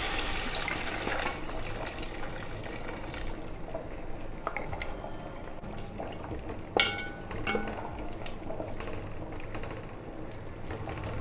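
Beef stock poured into hot fried masala in a steel pot: the sizzle dies away over the first few seconds into a quieter bubbling as the gravy heats, with a wooden spatula stirring and a few sharp knocks against the pot, the loudest about seven seconds in.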